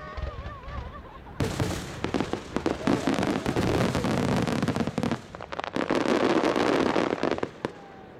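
Aerial fireworks: a rapid barrage of shell bursts and crackling starts suddenly about a second and a half in. It eases briefly past the middle, picks up again, and ends with one sharp crack near the end.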